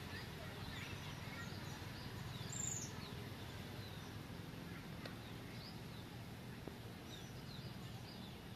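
Faint outdoor ambience: scattered short bird chirps over a steady low background noise, with one higher, louder call a little under three seconds in.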